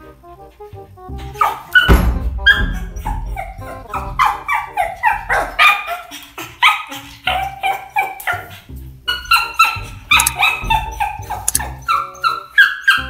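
Pug barking over and over in short, high barks, about two a second, beginning about a second and a half in, with background music underneath.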